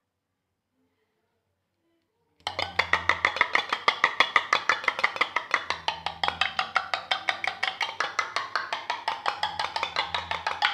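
A spoon beating dalgona coffee mixture by hand in a mug, clicking against the mug in a fast, even rhythm of about eight strokes a second. It starts about two and a half seconds in.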